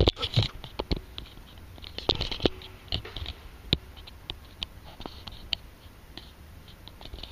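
Camera being handled and set down on a concrete floor, with a cluster of knocks right at the start, then irregular sharp clicks and light scratchy taps for several seconds.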